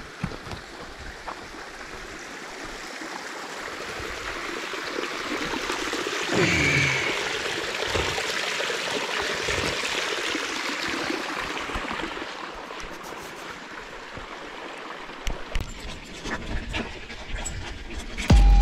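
Thin stream of water trickling and splashing down a rock face, getting louder through the middle as the water is approached and a hand is held in the falling flow, then fading. There is a short knock about six and a half seconds in.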